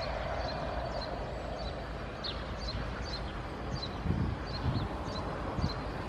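Steady low rumble of airport background noise, with a small bird chirping over it in short high chirps, about two to three a second. A few soft low thumps come about four seconds in.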